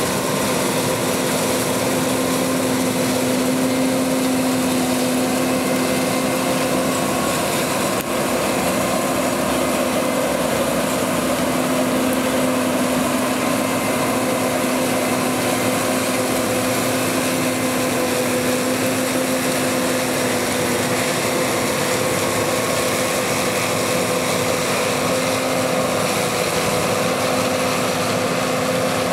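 Combine harvester running steadily while harvesting soybeans: an even machine drone with a constant pitched hum.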